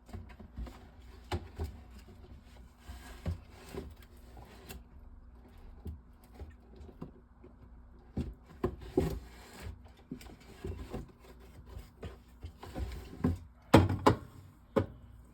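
Cans of pop being knocked and set into place in a fridge one after another, with irregular knocks and clinks; the loudest knocks come near the end.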